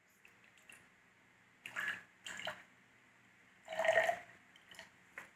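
Sugar water poured from a small glass into a tall drinking glass in three short pours, the last the loudest, with a few light clicks.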